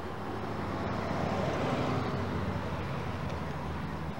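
A car passing on the street, the noise swelling and then fading over about three seconds, over a steady low hum.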